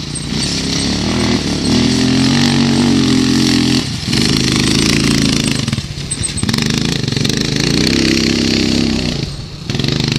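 ATV engine held at high revs under throttle, easing off briefly about four, six and nine and a half seconds in, as the quad is spun in an attempted donut with the tyres not gripping.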